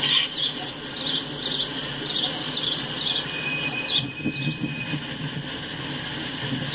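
Freight train boxcars rolling past on the rails: a steady low rumble of the wheels with irregular high clicking. A high, steady squeal from the wheels on the rail lasts a couple of seconds around the middle.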